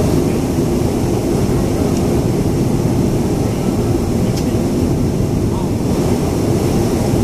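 Steady low rumble inside the cabin of a Boeing 737-500 airliner on the ground, with a fainter even hiss above it.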